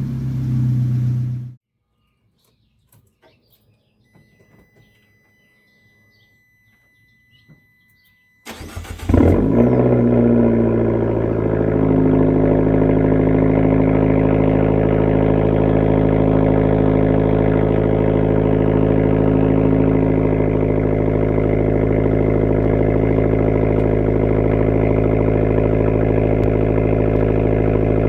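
Abarth car engine heard from inside the cabin: it runs, shuts off about a second and a half in, and is followed by several seconds of near silence with small clicks and a faint high tone. The engine is then started again, flares briefly and settles into a steady idle.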